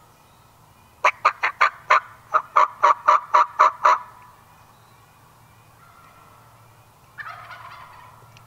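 Wild turkey calling: a loud series of about a dozen yelps over three seconds, with a short break partway. Near the end comes a fainter call about a second long that starts sharply and fades, likely a gobble.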